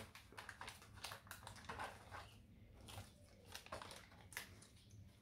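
Faint, irregular crinkling and clicking of clear plastic packaging as a figure is unwrapped by hand.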